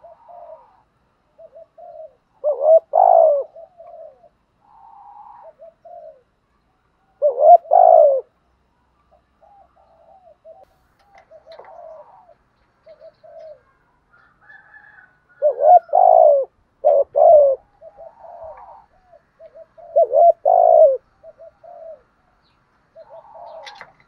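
Spotted doves cooing: four loud groups of deep coos a few seconds apart, with fainter coos and soft short notes in between.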